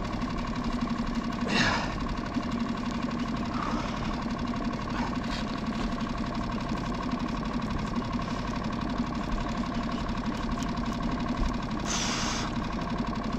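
A boat motor idling steadily. There is a downward-sweeping swish about a second and a half in and a short rush of noise near the end.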